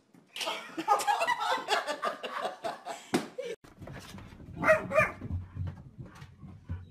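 A small dog in boots scuffling and clicking across a hardwood floor. After that, a dog gives two short barks in quick succession about five seconds in, over a low steady hum.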